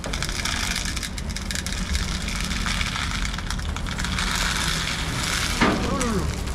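Dried corn kernels pouring from a plastic bag into a feeder box, a steady crackling rattle of grain with the bag crinkling. A single sharp knock comes about five and a half seconds in.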